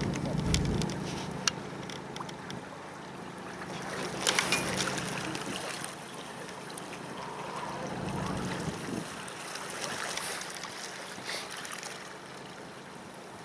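River ferry under way: a low engine hum, strongest at the start and again about eight seconds in, under the rush of water along the hull, with gusts of wind on the microphone.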